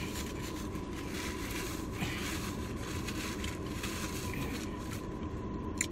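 Quiet chewing of a mozzarella stick, with a few faint mouth clicks, over a steady low background rumble and a thin steady high tone.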